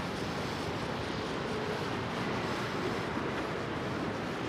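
Steady city street ambience: an even rush of distant traffic, with no single event standing out.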